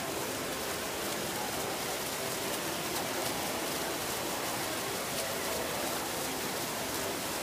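Steady rush of running water in a garden koi pond, with faint voices of people under it.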